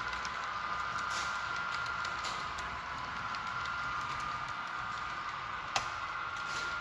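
HO-scale model EMD SD70ACe locomotive running along the track, its motor giving a steady high whine with light clicks from the wheels and rails, and one sharper click near the end.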